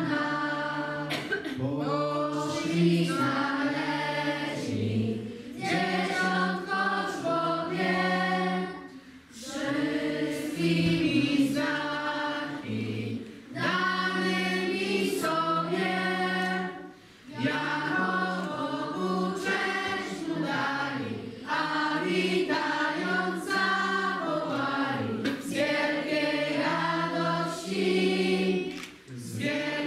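A group of children singing a Christmas carol together in unison, phrase after phrase, with brief breaks between lines.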